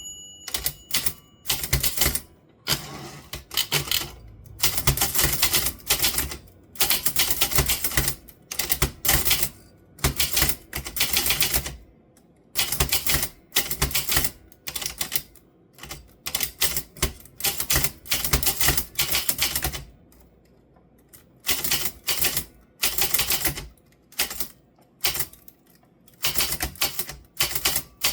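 Typewriter keys being struck in quick runs of clacks, in bursts of a second or two with short pauses between them. There is a brief bell-like ring at the very start.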